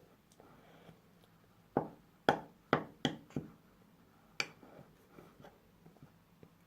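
Spoon knocking against the side of a bowl while stirring a thick flour-and-shampoo slime mixture: about six sharp clacks in quick succession, mostly between two and four and a half seconds in.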